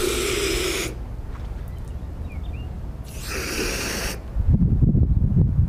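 Hose water rushing through a foam gun into its plastic soap bottle as it fills, with a hollow tone from the bottle; the flow stops about a second in and runs again for about a second near the four-second mark. A low rumble follows near the end.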